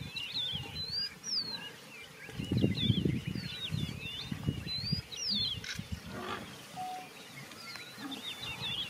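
Birds chirping throughout in short whistled calls that glide up and down, over low rumbling sounds that swell loudest between about two and five seconds in.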